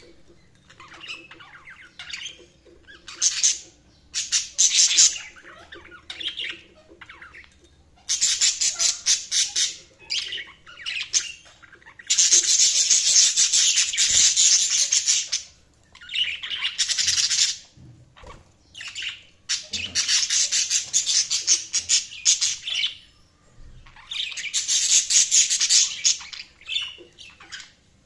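Budgies (budgerigars) chirping and chattering in repeated bursts of rapid high warbling, a few seconds each, with short pauses between.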